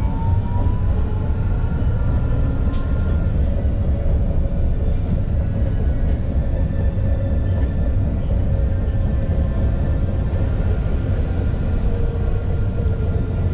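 Alstom Citadis low-floor electric tram running along its track: a steady low rumble of wheels on rail with the whine of the electric drive on top. The whine rises in the first second, then holds steady at running speed.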